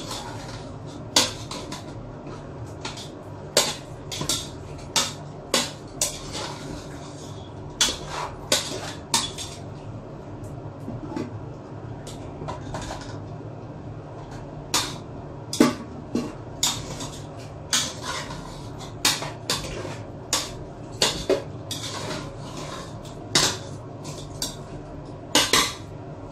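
Cooking utensil stirring and scraping in a pot, with irregular clanks and knocks against the pot's sides throughout.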